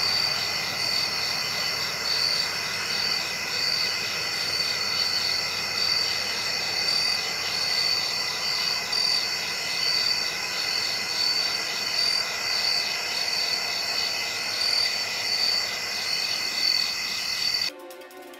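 A night chorus of insects, a steady high-pitched trill with a slow, regular pulse. It drops away briefly near the end.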